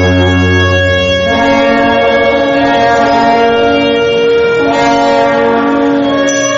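Procession band of brass and woodwinds playing a slow funeral march in long held chords that change every few seconds.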